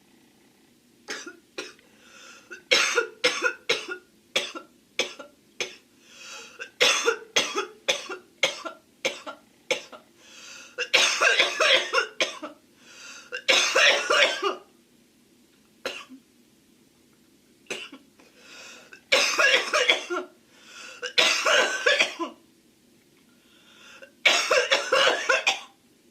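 A girl coughing repeatedly: from about a second in, a string of short single coughs, then five longer fits of a second or more each with pauses between. She puts the cough down to smoking.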